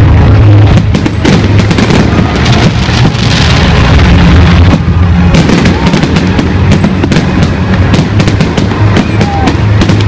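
Aerial fireworks display: shells bursting, with dense crackling that thickens from about halfway in, over loud music with a steady bass.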